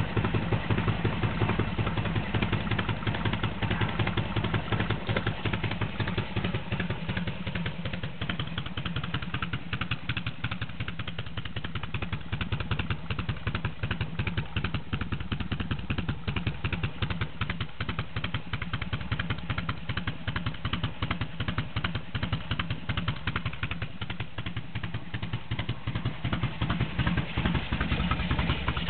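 Harley-Davidson Evolution air-cooled V-twin on a bobber, idling with a steady pulsing beat, slightly louder near the start and again near the end.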